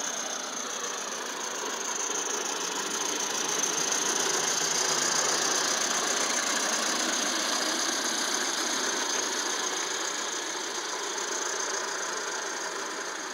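Accucraft Emma live-steam garden-scale locomotive running along the track, steam exhaust and wheels on the rails sounding continuously with a steady hiss, growing louder to a peak about five seconds in as it passes close, then fading.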